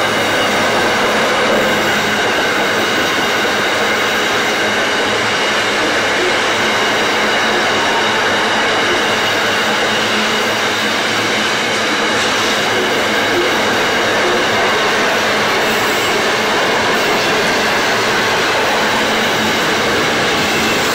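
Grain train's hopper wagons rolling past on the track: a steady running noise of wheels on rail, with a few steady high-pitched tones held over it.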